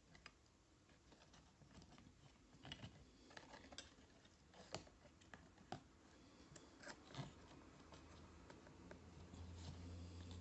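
Faint scattered clicks and short scrapes of hand work on a small rusty metal tool. A low steady hum comes up near the end.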